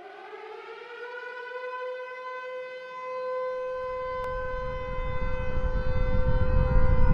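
Air-raid siren wail, its pitch rising slightly and then holding steady, with a low rumble swelling underneath from about halfway through and growing louder toward the end.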